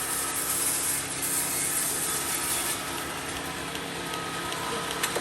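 Sawmill saw running: a steady motor hum under a hiss of wood being sawn, the hiss brighter in the first half.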